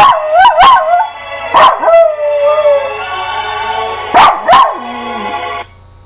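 Small dog howling and yipping at a song: sharp yelps, the loudest sounds, mixed with wavering, falling howls over the music. The music cuts off suddenly near the end.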